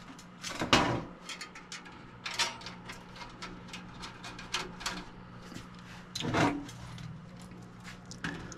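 Scattered clicks, knocks and scrapes of a metal computer case and parts being handled, over a faint steady low hum.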